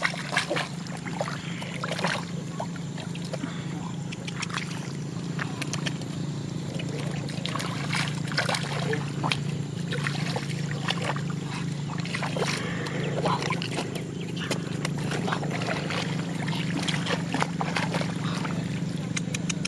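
Water and mud splashing and sloshing in quick irregular bursts, over the steady hum of a small engine.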